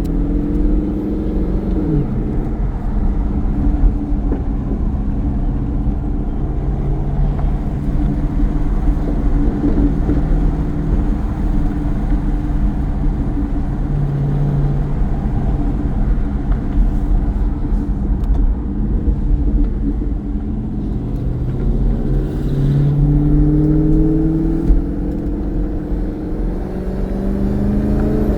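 Dodge Challenger SRT Hellcat Redeye's supercharged 6.2-litre V8 running through a Corsa Xtreme exhaust, a deep rumble whose pitch rises and eases several times and is loudest a little past three-quarters of the way through. A single sharp crack comes from the exhaust near the end.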